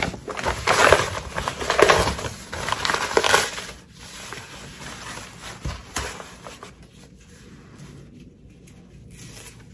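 Tear-away embroidery stabilizer being ripped away from a stitched vinyl strip: several loud paper-like tearing rips over the first four seconds, after which it goes much quieter.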